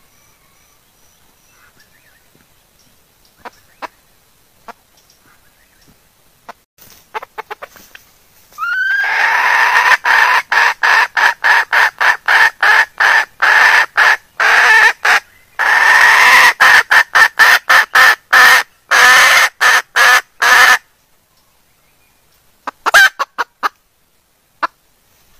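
Junglefowl hen clucking: a few soft scattered clucks, then from about nine seconds a long loud run of rapid clucks, about three a second, lasting some twelve seconds, and a few more near the end. This is the hen's mating call to a cock, used by hunters as a lure sound.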